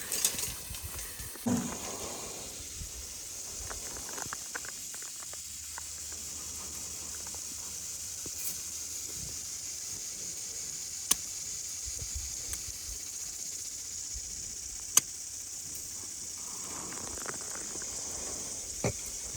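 Water spraying from a hose or mister nozzle as a steady, high hiss. It starts about a second and a half in and stops near the end, with two sharp clicks partway through.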